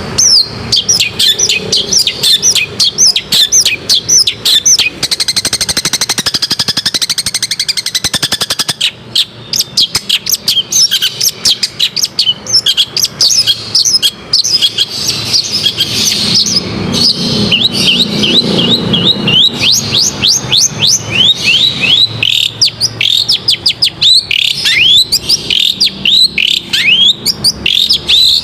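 Long-tailed shrike singing a fast, unbroken string of sharp chirps that sweep downward in pitch, with a harsh buzzy rattle several seconds in.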